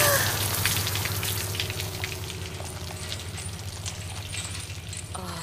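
Blood dripping and spattering in many small, irregular drops over a low steady hum. A faint falling voice is heard near the end.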